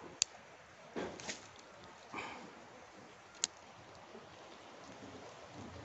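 Mostly quiet, with two sharp clicks about three seconds apart and a few soft rustles between them.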